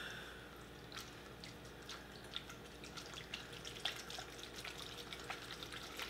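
Faint, irregular light clicks and ticks of food being handled at a kitchen counter, about one to three a second.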